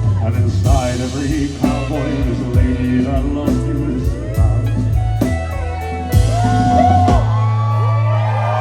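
Live band playing the instrumental close of a country song, bass and guitar under a bending melody line, settling onto a final held chord that rings out near the end.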